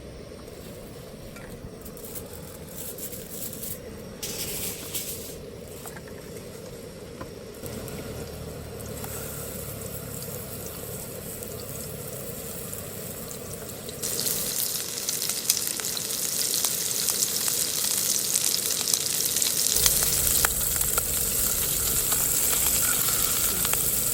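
Meat frying in a hot pan, sizzling. The sizzle jumps much louder about halfway through and keeps going strongly.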